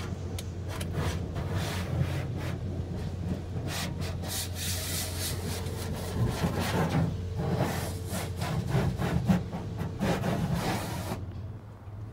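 Car wash water spray hitting the car's windows and body, heard from inside the car: surging, uneven hiss over a steady low hum, the spray falling away about a second before the end.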